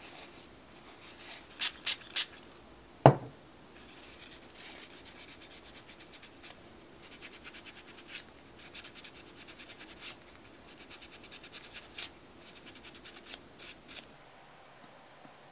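Paper towel crinkling as it is folded, then a single sharp knock about three seconds in. After that come quick, repeated rubbing strokes of the paper towel wiping over the fingernails, which stop near the end.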